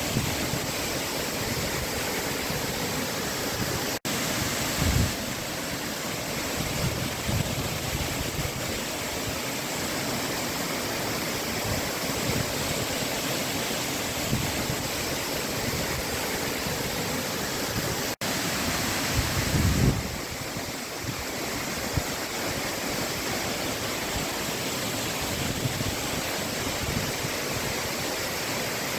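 Girlevik waterfall's water pouring with a steady, even rush. Two brief low bumps come about five seconds in and again about twenty seconds in.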